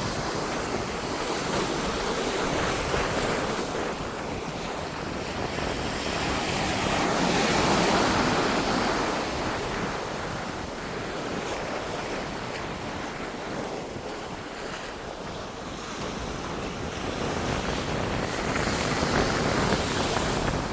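Ocean surf washing in and swelling in waves, louder about a third of the way in and again near the end, with wind buffeting the microphone.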